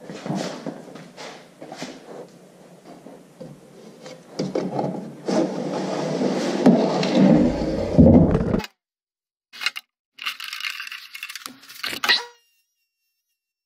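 Plywood boards being handled and slid over a workbench: wood rubbing and scraping with light knocks, getting louder and ending in a heavier clatter about eight seconds in. After a short gap, a quieter hissing scrape as a board slides along the table saw's fence.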